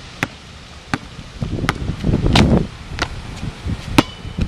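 A basketball being dribbled on an asphalt court: sharp single smacks of the ball hitting the ground, roughly one a second, with a stretch of low rumbling noise in the middle.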